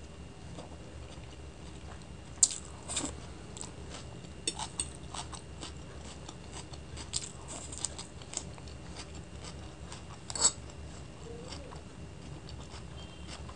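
Close-miked eating: chewing of chow mein noodles with raw onion and cabbage, with scattered sharp clicks, the loudest about two and a half seconds in and again about ten and a half seconds in.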